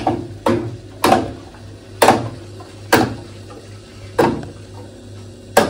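Glow-worm combi gas boiler making a really loud banging noise as it runs: six sharp bangs, roughly a second apart, over a steady low hum. This is the sign of air in a heating system that is nearly empty of water; topping up the pressure and bleeding the radiators stops it.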